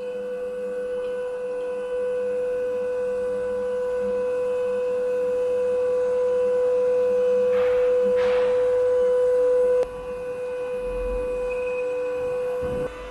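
The electric motor and hydraulic pump of a Blackstone EVL 12 vertical log splitter running with a steady hum, with a brief hiss about eight seconds in and a drop in level about ten seconds in.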